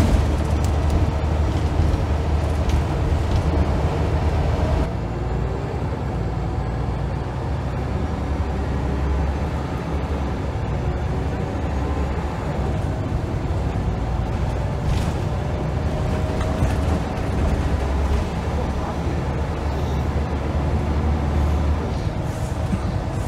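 Scania L94UB single-decker bus's five-cylinder diesel engine under way, heard from inside the rear of the saloon: a deep drone that eases off about five seconds in and builds again several times as the bus pulls.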